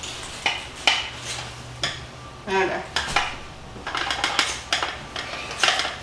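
Irregular clinks and taps of a dish knocking against a hand-held flour sifter as a cocoa and sugar mix is poured and shaken into it.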